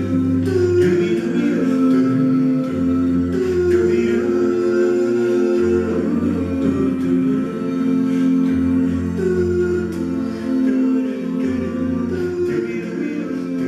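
A cappella male vocal quartet singing sustained close-harmony chords. The low bass voice holds each note and moves to a new one about every three seconds beneath the held upper voices.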